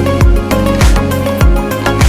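Background music with a steady beat: a deep kick drum about every 0.6 seconds under sustained chords.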